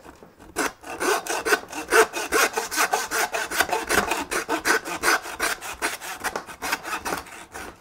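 Butcher's bow-frame hand saw cutting through lamb loin bone with quick, even back-and-forth rasping strokes. The strokes start about half a second in and stop just before the end, once the blade has come through the bone.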